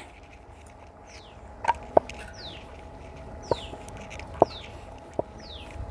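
A bird repeating a short, high falling whistle about five times, roughly once a second. A few sharp clinks of cooking utensils, louder than the bird, come between the calls.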